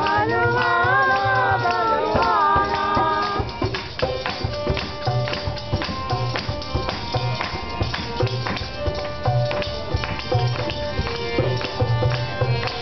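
Group singing a Hindu devotional song, accompanied by a fast, steady beat of jingling hand percussion. The voices fall away after about three and a half seconds, leaving the percussion and softer held tones.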